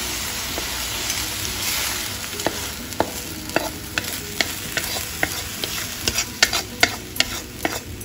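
Cooked ridge gourd mixture sizzling in a hot pan while a wooden spatula stirs it, then sharp taps and scrapes of the spatula against the pan as the mixture is scraped out onto a plate. The knocks come quicker in the last couple of seconds.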